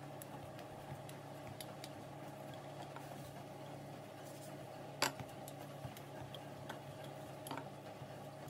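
Faint scattered taps and clicks of a wooden rolling pin and hands working biscuit dough on a countertop, with one sharper knock about five seconds in, over a low steady hum.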